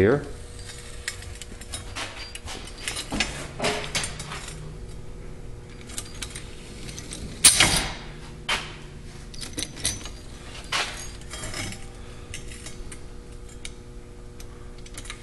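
Steel scissor linkage of a pneumatic scissor prop being worked by hand, its bolted bars clinking and knocking at the pivots in scattered metallic clacks, with one louder clank about seven and a half seconds in.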